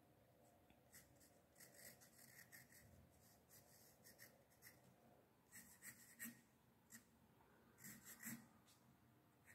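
Faint scratching of a graphite pencil sketching on 100% cotton watercolour paper, in short runs of strokes with pauses between them.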